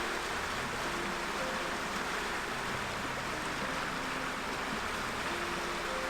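Steady rush of flowing stream water, with faint held notes of background music underneath.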